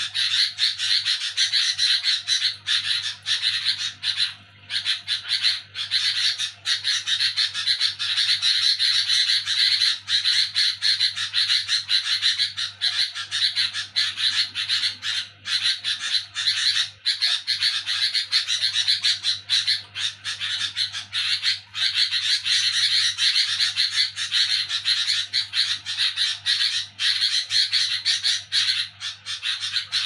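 Sooty-headed bulbul (kutilang) giving a noisy, rapid harsh chatter (nyerecet), almost unbroken with only brief pauses, over a faint low hum.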